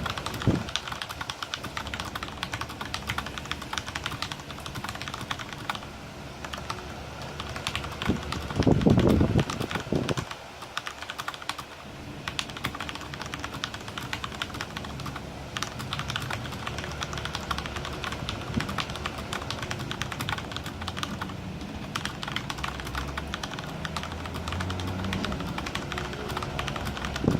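Fast typing on a Corsair Strafe mechanical keyboard with Cherry MX Red linear switches: a dense, continuous clatter of keystrokes. A louder, deeper thump comes about nine seconds in.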